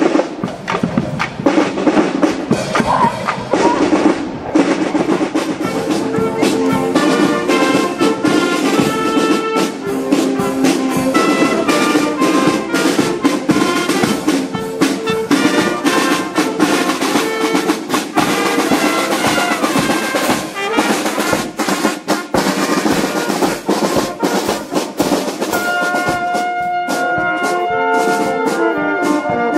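Marching drum band playing on the move: a row of snare drums beats a fast march rhythm. From about six seconds in, saxophones and trombones play a melody over the drums.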